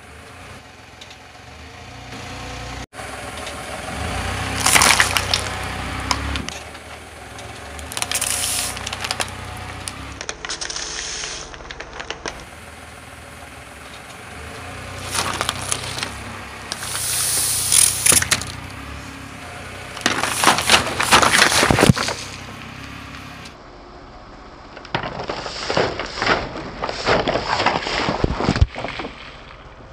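A car tyre rolling onto a full plastic soda bottle on wet stone paving, the plastic crackling and then bursting with a spray of liquid. Several loud crackling, splashing bursts a few seconds apart.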